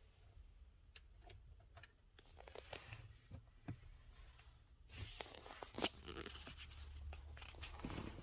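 Handling noise close to the microphone: scattered small clicks and rustling, getting busier and louder about five seconds in.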